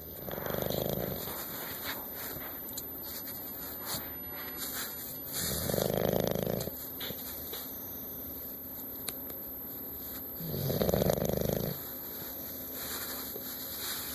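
Bulldog snoring: three loud snores about five seconds apart, each lasting about a second.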